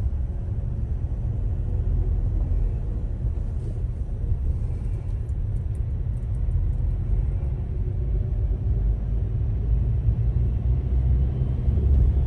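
Steady low rumble of a vehicle's engine and road noise heard from inside the cab, with no sudden events.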